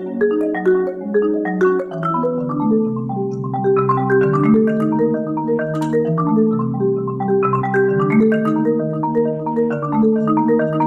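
Solo marimba playing a steady, flowing stream of mallet notes over lower sustained notes.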